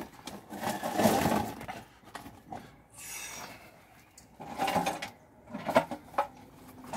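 Handling noises: irregular rustling and scraping with a few light knocks and clicks, as pots and potting material are handled while repotting an orchid and the worker shifts on his seat.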